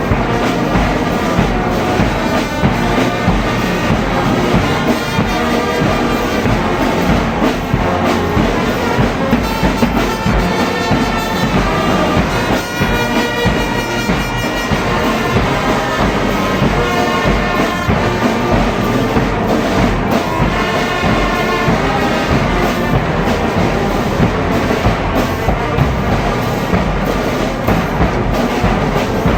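Brass band playing continuously, brass instruments over drums.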